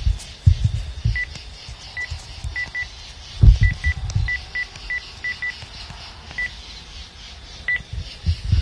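Phone keypad beeping as a number is dialled: about a dozen short beeps at one pitch, unevenly spaced. A louder low thump comes about three and a half seconds in, with lighter knocks and rumbles.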